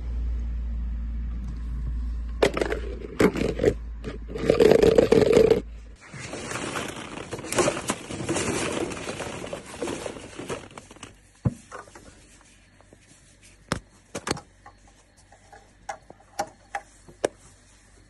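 Hollow plastic ball-pit balls rustling, scraping and knocking together as a hand digs through them, then scattered light clicks of balls tapping. For the first six seconds a low hum with loud clattering runs under it and cuts off suddenly.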